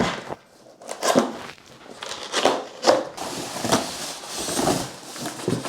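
Monitor's cardboard box and packaging being opened and rummaged through: irregular scrapes, rustles and knocks.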